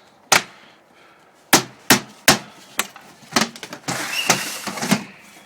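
A hammer striking wood in about six sharp, irregular blows while an old window frame is being knocked out, followed near the end by about a second of rough scraping and cracking.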